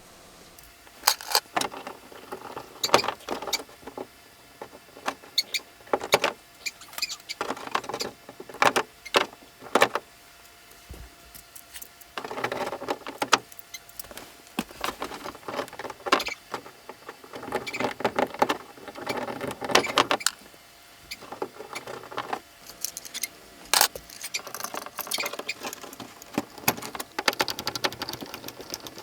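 Irregular clicks, scrapes and rattles of a residential wall outlet and its wires being handled, the stripped wires pushed into the outlet's push-in holes.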